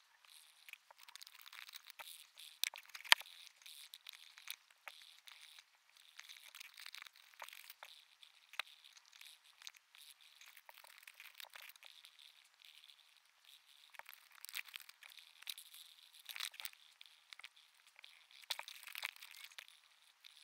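Wax crayons scribbling on paper in quick scratchy strokes that come and go, with occasional sharp clicks, the loudest about three seconds in.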